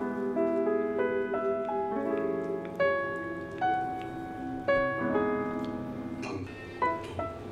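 Background piano music: a slow melody of single struck notes over held lower notes.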